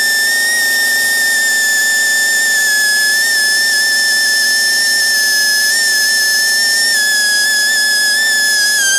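Power tool spinning a lightly abrasive polishing wheel, grinding old silicone sealant off an engine block's sealing surface. It makes a loud, steady, high-pitched whine that drifts slightly lower as it works.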